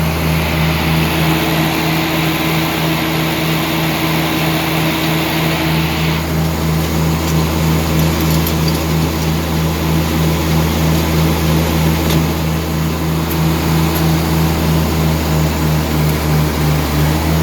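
Farm tractor engine running steadily under load while baling hay, with an even pulsing drone about twice a second.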